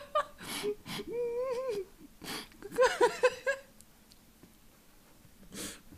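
A person whimpering and moaning in disgust at the taste of a snack being chewed: a wavering drawn-out moan about a second in, a cluster of short whimpers around three seconds, with sharp breaths between, then quieter breathing.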